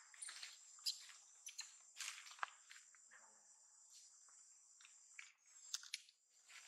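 Insects droning with a steady high-pitched tone, broken by scattered short rustles and clicks; the drone drops out briefly about five seconds in.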